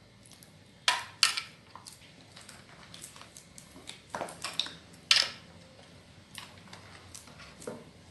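A spoon stirring and scraping a gritty sugar-and-oil scrub in a bowl, knocking against the bowl a dozen or so times; the loudest clinks come about a second in and again just after five seconds.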